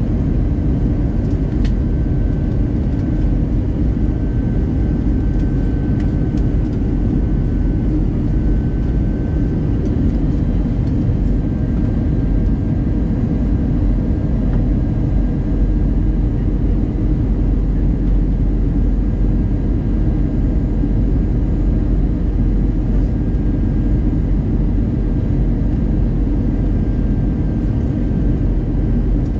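Steady in-flight cabin noise of an Airbus A320-200 heard from inside the cabin: a dense, even low rumble of engines and airflow, with a faint steady high whine above it.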